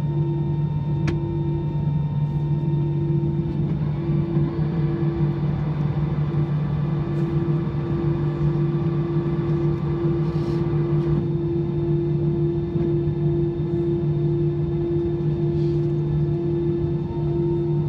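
Steady hum in the cabin of an Airbus A319, heard by the wing. For several seconds a higher whine joins in and then stops abruptly, while the trailing-edge flaps are extending: the hydraulic flap drive at work.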